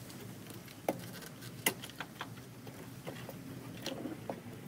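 Scattered light clicks and taps of hands fitting rubber oil catch can hoses among plastic parts in an engine bay, with two sharper clicks about one and two seconds in.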